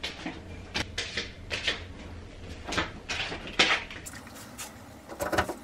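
Irregular clicks and knocks of a clothes iron and its cord being handled and set up, with a few quick clicks near the end as the plug is pushed into a wall socket.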